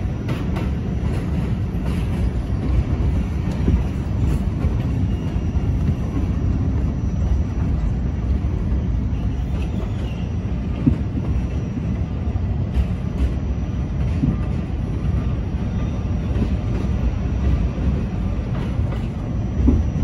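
Subway work train of flat cars passing close by: a steady low rumble of steel wheels on the rails, with a few sharp clacks over the rail joints.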